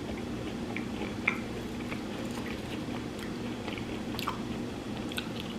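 A person chewing food close to the microphone, with small wet mouth clicks, over a steady low hum.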